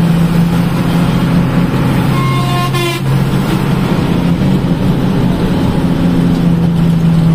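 A bus's engine drones steadily, heard from inside the cab. A vehicle horn sounds once, briefly, about two seconds in.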